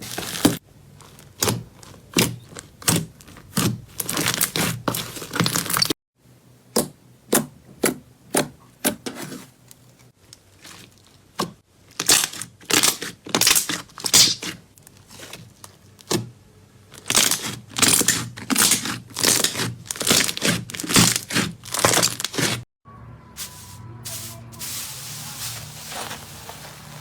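Slime being pressed and squeezed by hand, giving runs of sharp crackling, crunching pops several times a second. Near the end it changes to a quieter, softer steady rustle.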